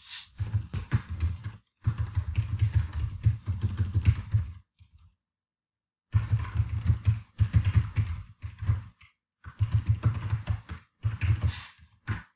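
Typing on a computer keyboard: quick runs of keystrokes broken by short pauses, with one silent pause of about a second and a half midway.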